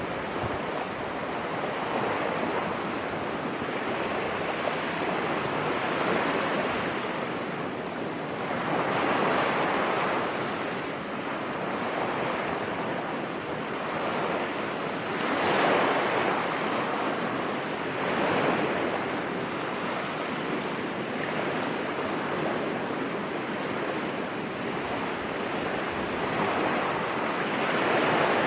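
Sea waves breaking and washing on a beach, a continuous surf with a swell every few seconds, strongest about halfway through. Wind buffets the microphone.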